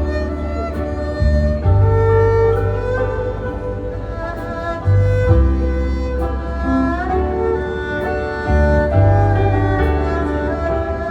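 Chinese instrumental ensemble music: a bowed erhu melody with sliding notes over piano chords and bass notes that change every second or two.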